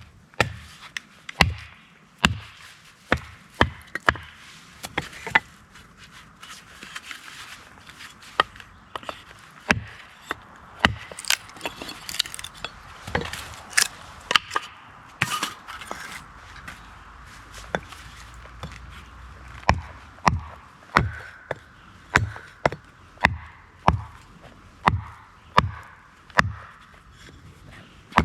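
Wood being split into quarters: a long run of sharp knocks of a striking tool on wood, about two a second at the start and again from about two-thirds of the way in, fewer in between, with a stretch of cracking and splintering partway through.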